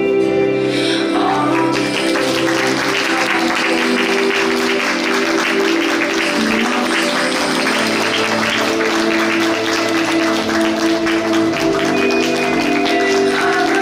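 A theatre audience applauding over music with held tones. The clapping swells in about one and a half seconds in and then keeps going steadily.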